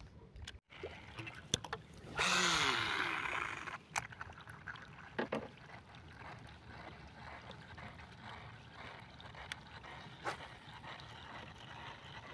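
A baitcasting reel's spool running out on a cast about two seconds in, a whirring rush lasting about a second and a half, then the reel being wound steadily on the retrieve with faint regular ticking.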